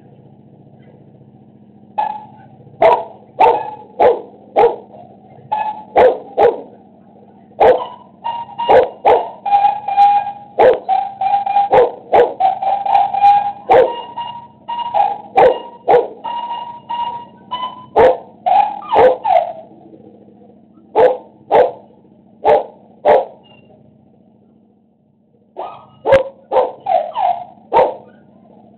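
A dog barking repeatedly in quick volleys, breaking off twice for a few seconds before starting again, over a steady low hum.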